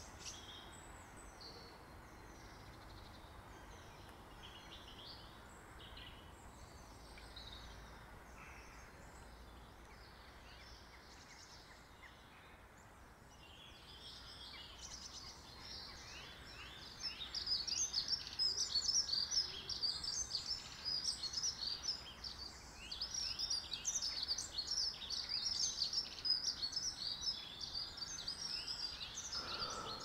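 Small songbirds chirping and twittering, many short calls that are sparse and faint at first and become a dense, louder chatter about halfway through.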